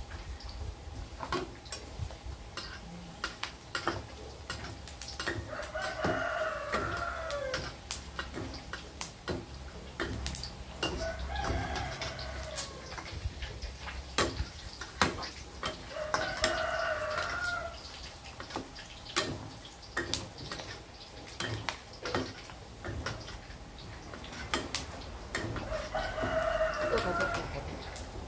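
A rooster crows four times, each crow about two seconds long. Under the crowing, pork belly pieces crackle and pop as they deep-fry in oil in a wok, and a metal spatula stirs them.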